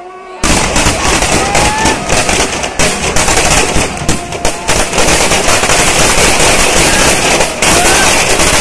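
Firecrackers packed in a burning Dussehra effigy going off in a rapid, continuous crackling barrage. It starts suddenly about half a second in and stays loud throughout.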